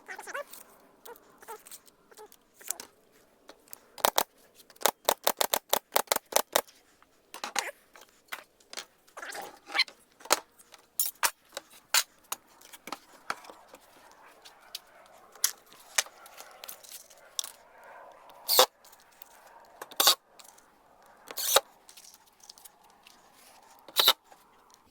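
Sharp clicks and knocks from work on wooden shutter boards: a quick run of about ten around five seconds in, then single clicks every second or two.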